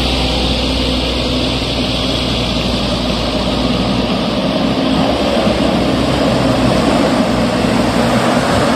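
Diesel truck engines labouring uphill. A dump truck's engine runs steadily close by at first and fades about 4 seconds in. Then a Mitsubishi Canter box truck's diesel engine grows louder as it climbs the rough dirt slope toward the microphone.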